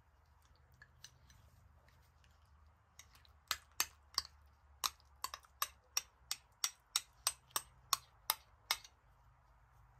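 A metal spoon clinking against glass bowls while Schmand is scraped out of a small glass bowl into a larger one: a run of sharp clinks, about three a second, starting about three seconds in and stopping just before the end.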